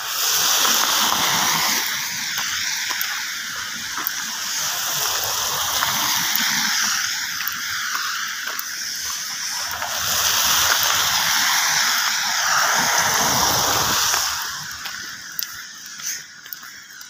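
Cars passing on a wet, slushy road, their tyres hissing and splashing through the water. The sound swells loudest twice, once near the start and again from about ten to fourteen seconds, then falls away.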